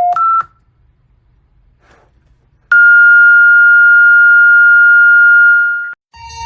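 Emergency alert system alarm tones. A rapid two-pitch electronic beep alternates high and low and stops about half a second in. After a pause, a loud steady single-pitch alert tone holds for about three seconds and cuts off.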